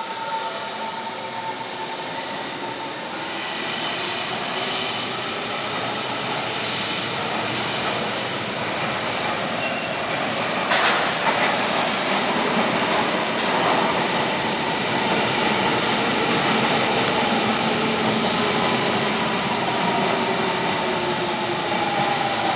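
Berlin S-Bahn electric train pulling into the platform, growing louder about three seconds in, with squealing wheels and a pitched whine that glides in pitch as it slows.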